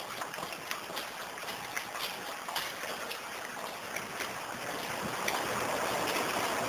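Footsteps walking, roughly two steps a second, over a steady rushing hiss that grows a little louder near the end.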